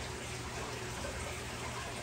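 Aquarium water circulation running: a steady rush of moving water with a constant low hum.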